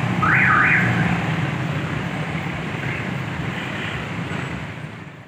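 Road traffic at an opened railway level crossing: motorcycle and car engines running as vehicles move across, with a short high tone that rises and falls twice about half a second in. The sound fades out near the end.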